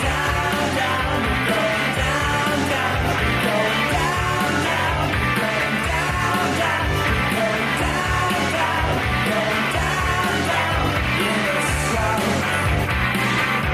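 Rock music playing steadily, a full band sound.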